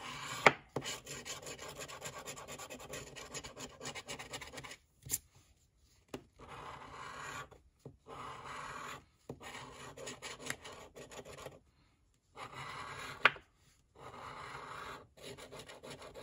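A coin scratching the coating off a scratch-off lottery ticket, in runs of quick rubbing strokes with short pauses between them, with a few sharp clicks.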